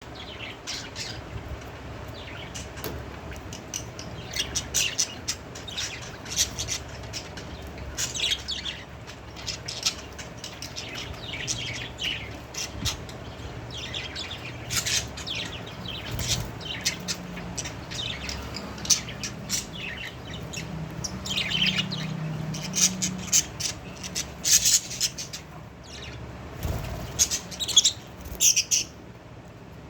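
Budgerigars chirping in quick runs of short, sharp calls, over a steady low hum.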